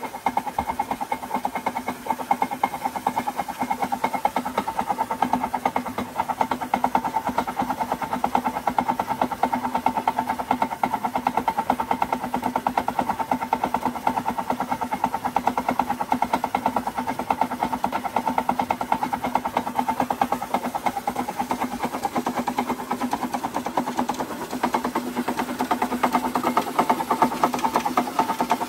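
Belt-driven machinery running steadily: an electric motor spinning a heavy flywheel that drives an alternator by V-belts, with a water pump running. A steady hum with a fast, even ticking over it.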